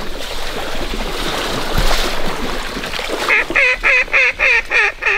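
A steady rushing noise, then from about three seconds in a run of about eight loud, evenly spaced duck quacks, roughly three a second, in the pattern of a mallard hen's quacking series.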